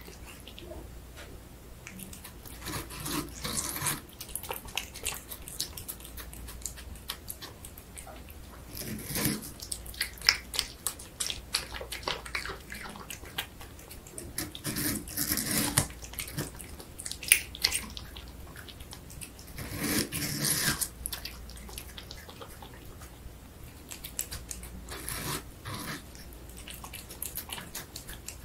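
A cat licking and biting into watermelon flesh, close up: bursts of wet chewing and lapping clicks every few seconds, with quieter stretches between.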